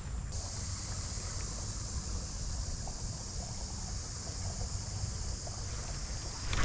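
Wind rumbling on the microphone, with a steady high hiss that sets in just after the start. A few sharp clicks come at the very end.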